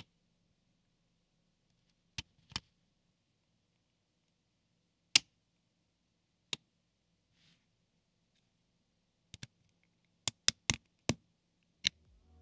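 LEGO Technic plastic parts clicking as pins, beams and connectors are pressed together and handled: about ten short, sharp clicks at irregular intervals, coming faster in the last few seconds.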